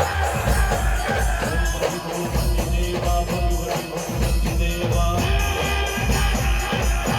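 A live band playing an instrumental passage of a Marathi devotional-style song: a heavy, deep drum beat, jingling percussion and a melodic lead, all loud.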